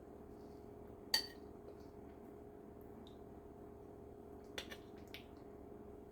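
A spoon clinking once against a dish about a second in, with a brief ring, then a few softer clicks of handling near the end, over a steady low room hum.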